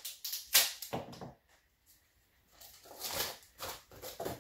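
A small cardboard shipping box being handled: short scrapes and knocks in two groups, with a pause of about a second between them.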